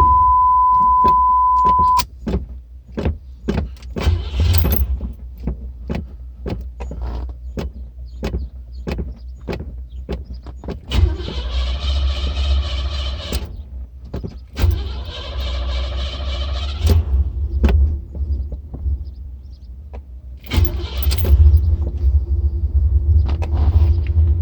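Flooded Cadillac engine running rough and sputtering after a hard start, over a constant low rumble, with irregular sharp pops about once or twice a second. There are two louder stretches of a few seconds each in the middle, and near the end it settles into a heavier, steadier rumble. A steady high tone sounds for the first couple of seconds.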